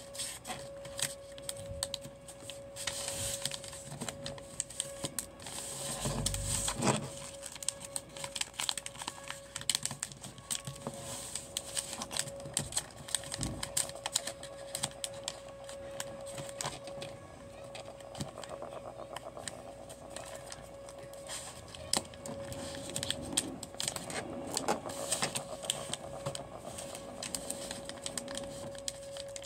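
A sheet of origami paper being folded and creased by hand on a table: irregular crisp rustles, crinkles and small taps as fingers press the folds flat, with a louder rustle about six seconds in.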